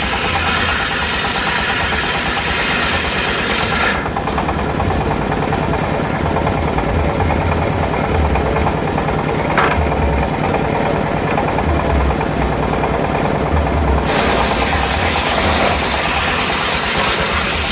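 Engine of a circular sawmill rig running steadily at a constant speed, with a low pulsing beat. A higher hiss sits on top for about the first four seconds, stops, and comes back near the end.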